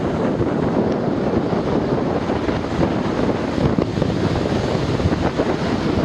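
Strong wind buffeting the microphone in gusty, ragged bursts, over the steady rush of storm waves breaking on a sandy beach.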